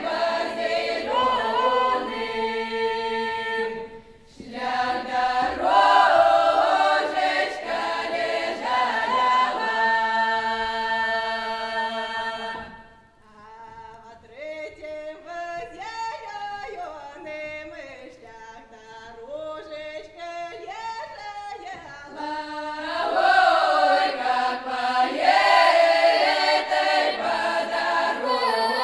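Folk choir singing a traditional Kuban Cossack song a cappella, many voices in full-voiced harmony. A brief breath break comes about four seconds in. Around the middle the singing drops to a quieter, thinner passage before the full choir comes back in loudly.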